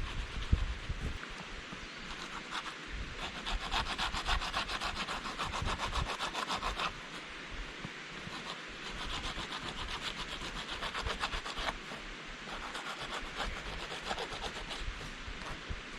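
Pumice stone rubbed fast back and forth over the flesh side of a dried fur pelt, sanding the hide to soften it, the last stage of fur tanning. A rapid, rhythmic scratchy rasping comes in runs of a few seconds, with brief breaks about 7 and 12 seconds in.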